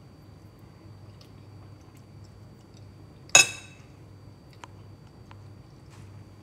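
A metal fork set down in a bowl, one sharp clink with a short ring about three seconds in, followed by a couple of faint ticks, over a low steady room hum.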